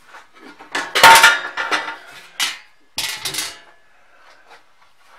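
Sheet-metal top cover of an amplifier chassis being lifted off and set down, clanking and scraping. The loudest clatter comes about a second in, with further clanks around two and a half and three seconds.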